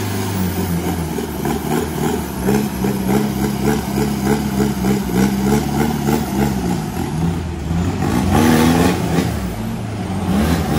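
Off-road 4x4 engine running hard under load, its revs rising and falling unevenly, with a rev-up about eight seconds in.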